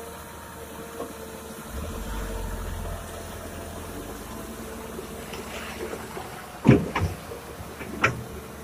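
Diesel engine running as a loaded Canter dump truck pulls away through muddy ruts and water, with a deeper rumble swelling for about a second around two seconds in. Three loud clunks come near the end, the first the loudest.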